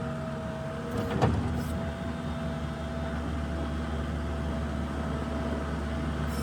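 New Holland LS170 skid steer's diesel engine running steadily while moving snow, with one short knock a little over a second in.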